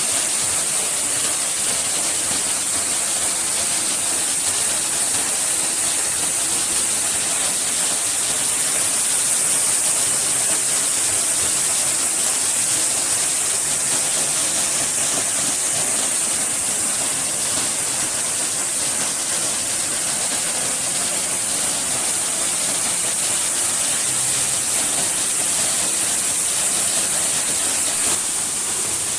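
Waterfall rushing steadily: a constant wash of falling water with a strong high hiss.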